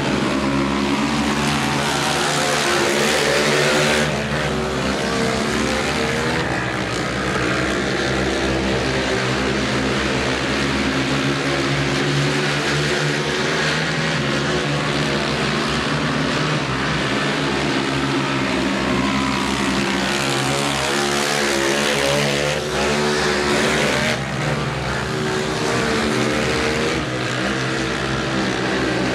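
Several racing quads (ATVs) running hard around a dirt speedway oval, their engines revving up and down together. The sound swells louder twice, near the start and about two-thirds of the way through.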